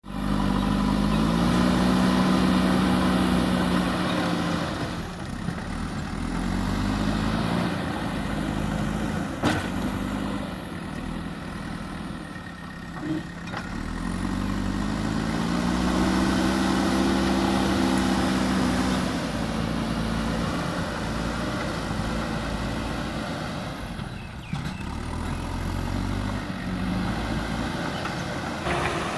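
Diesel engine of a JCB earthmoving machine working, revving up and dropping back again and again as it takes and sheds load, with an occasional sharp knock.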